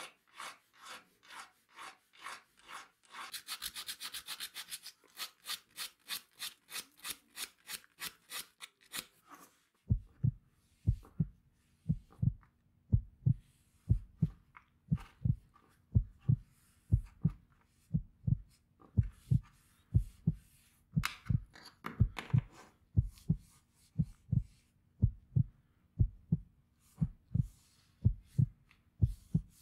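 A small flat hand file rasps along the edge of a straight razor's handle scale in quick rhythmic strokes, about three a second. About ten seconds in, the filing stops and a cloth pad rubs the piece, with soft low thumps about twice a second.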